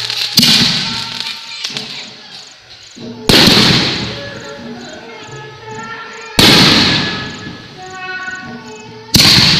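Aerial fireworks bursting: four sharp bangs about three seconds apart, the first about half a second in and the last near the end, each trailing off with an echoing decay. Music plays underneath.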